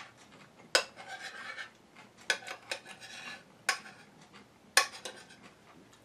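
Metal cutlery clinking and scraping against a ceramic bowl while chicken stew is spooned out, with about five sharp clinks and soft scraping between them.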